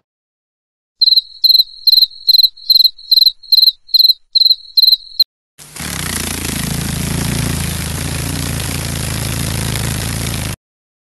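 Recorded cricket chirping: about eleven short, high, evenly spaced chirps, between two and three a second, stopping abruptly. After a short gap comes a steady whirring of dragonfly wings for about five seconds, which cuts off suddenly.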